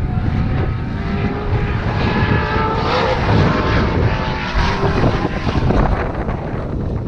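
Racing car's engine pulling hard uphill as it passes, its pitch rising and dipping with the revs and strongest in the middle, over heavy wind buffeting the microphone.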